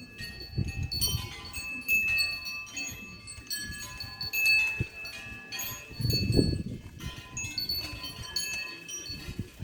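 Many overlapping metallic ringing tones, like chimes, each ringing on briefly and fading, with low thumps about half a second in and again about six seconds in.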